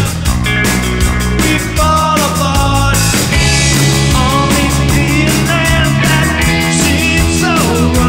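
Live rock band playing: electric guitars, bass guitar and drum kit, with a steady drum beat under the guitar notes.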